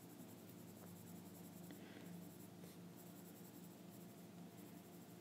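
Faint scratching of a Polychromos coloured pencil shading on coloring-book paper, in short soft strokes.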